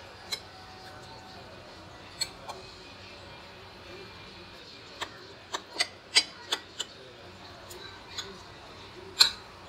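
Metal spoon and fork clinking and scraping against a plate while eating, in scattered sharp clicks with a quick run of them partway through and one louder clink near the end.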